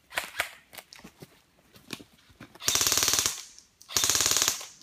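Airsoft rifle firing two short full-auto bursts, each under a second and about a second apart, with very fast, even shots. Scattered light clicks come before the bursts.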